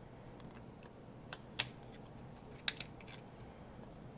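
A few short, sharp clicks and taps, in two close pairs, from a plastic keycap being handled while painter's tape is wrapped and pressed onto it.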